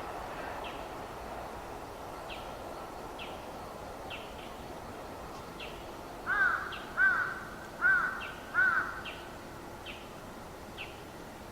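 A crow cawing four times in quick succession about six seconds in. Under it a faint high chirp repeats about once a second, and the last of the passed train's noise fades in the first seconds.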